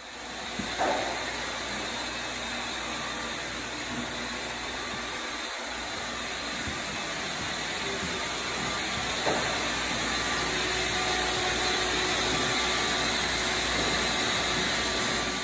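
Shop vacuum running steadily: a constant rushing hum with a faint high whine over it.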